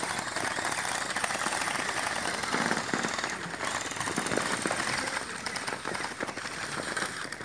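Electric water-gel blasters firing on full auto: a fast, continuous clicking rattle of rapid shots that dips briefly about halfway through.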